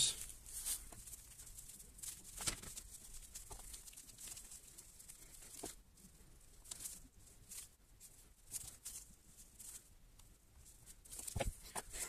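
Faint rustling and light ticks of gloved hands handling thin wires and dipping their ends into a small bottle of homemade pine-resin flux, with a sharper knock near the end.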